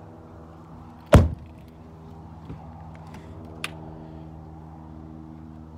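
A rear passenger door of a 2009 Cadillac Escalade EXT shut with one loud thunk about a second in, then a small click a few seconds later, over a steady low hum.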